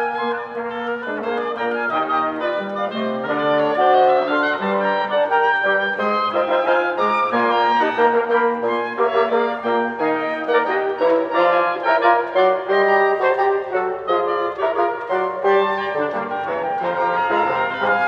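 Chamber wind quintet of flute, oboe, clarinet, bassoon and alto trumpet playing a dance piece together, with many quick short notes in the upper voices over a moving bassoon line.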